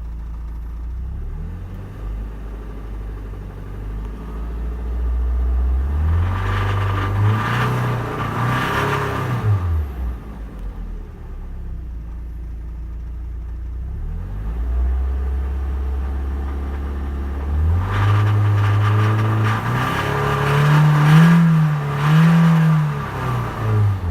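Mazda Miata four-cylinder engine idling and blipped up twice, the revs rising and falling back to idle each time, heard from inside the car. It carries a knocking noise that the owner is trying to tell apart as rod knock or lifter tick.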